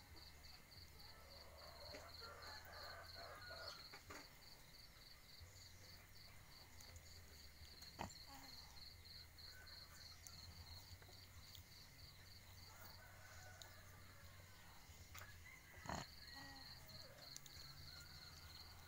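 Near silence with a few faint animal calls, over a steady, fast, high chirping pulse; two sharp clicks, one about halfway through and one late on.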